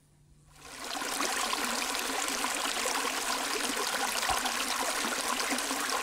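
Small shallow stream running and splashing over stones: a steady, busy rush of water that comes in within the first second.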